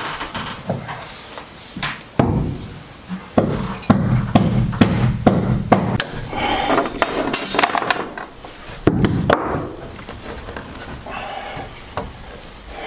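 Irregular sharp knocks, taps and clinks of hand work on a building site, with a scraping, rustling stretch around six to eight seconds in and a loud knock about nine seconds in.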